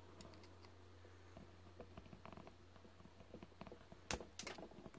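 Near silence: a faint low hum with scattered light clicks and taps of small objects being handled on a workbench, and a few sharper clicks about four seconds in.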